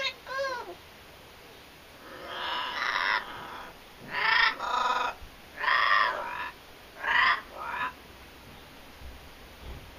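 Blue-fronted amazon parrot calling: a short whistled note at the start, then a run of about six short squawking calls spaced over the next several seconds.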